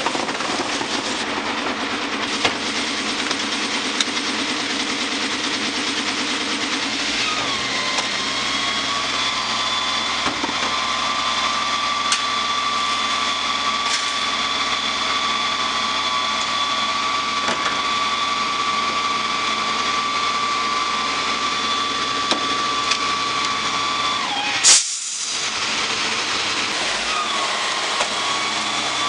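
Garbage truck's engine running with its hydraulic cart tipper working: a steady high whine comes up about 7 seconds in and holds while a wheeled trash cart is lifted and dumped. One loud sharp bang comes near the end, the whine briefly drops, then rises again as the next cart is lifted.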